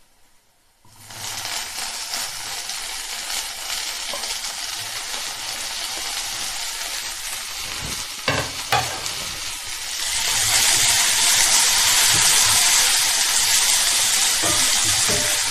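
Chopped tomatoes sizzling in hot oil with browned onions in a non-stick pan, the sizzle starting about a second in. Two knocks come about halfway through, and the sizzle grows louder in the last third as a spatula stirs the pan.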